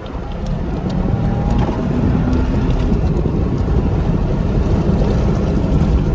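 2021 Ford Bronco driving off along a dirt trail: engine and tyre noise, growing louder about a second in as it picks up speed, then steady, with wind noise on the microphone.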